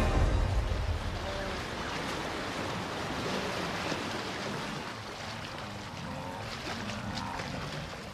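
Fast, muddy river water rushing through rapids: a steady churning noise, with a few splashes in the second half.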